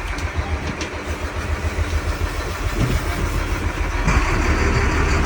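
Sportfishing boat's engine running with a steady low rumble under a noisy haze; a louder hiss joins in about four seconds in.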